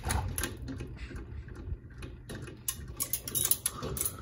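Ceiling fan running with a steady low hum, under irregular sharp clicks and ticks that come more often in the second half.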